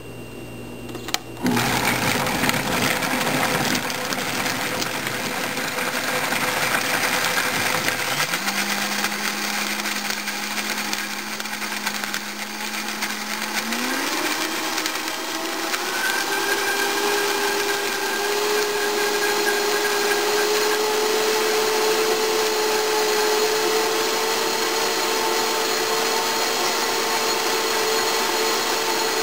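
A Vitamix blender starts about a second in and runs, puréeing soaked sun-dried tomatoes and other ingredients into a thick sauce. Its motor whine steps up in pitch a few times as it goes.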